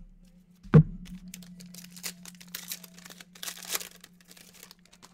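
A foil trading-card pack being torn open, its wrapper crackling and crinkling in the hands for several seconds. A single loud thump comes about a second in.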